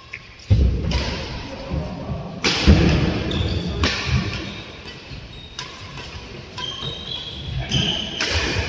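Badminton doubles rally: rackets smacking the shuttlecock about every second, with feet thudding and shoes squeaking on the wooden court, echoing in a large hall.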